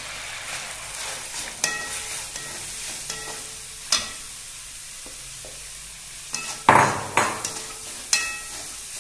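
Chopped onions sizzling as they fry in hot oil in a kadai, stirred with a steel spatula that scrapes and clinks against the pan several times, with brief metallic ringing after some strikes. The loudest strikes come about seven seconds in.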